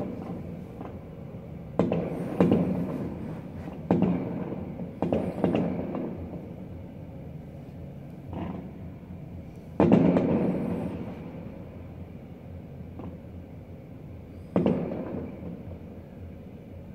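Fireworks going off: a series of sharp booms, each dying away in a rolling echo over a second or two, with the loudest one about ten seconds in.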